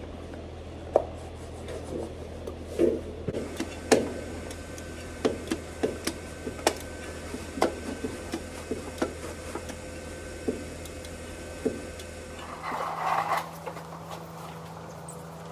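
Scattered sharp knocks and clicks of tools and parts being handled during hand work on a truck, over a steady low hum that changes to a higher hum about three quarters of the way through.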